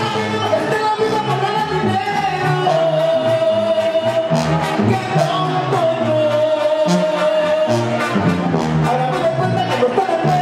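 Live Sinaloan banda music: a brass band with tuba, trumpets and clarinets plus drums accompanies a male lead vocal singing, with long held notes around the middle of the phrase.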